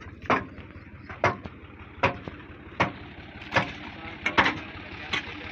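A spade chopping into packed, muddy earth beside a trailer wheel: about eight sharp strikes, roughly one every three-quarters of a second. A tractor engine idles steadily underneath.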